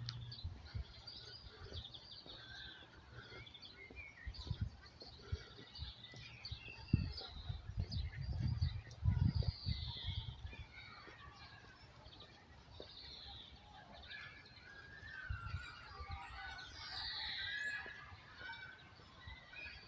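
Several songbirds chirping and whistling in a mix of short calls and gliding notes, with dull low thumps, loudest near the middle.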